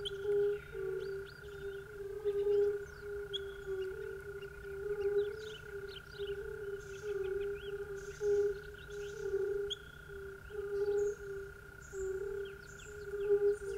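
Frogs calling in a repeating pulsed croak about once a second, with many short bird chirps over them and a steady high hum underneath.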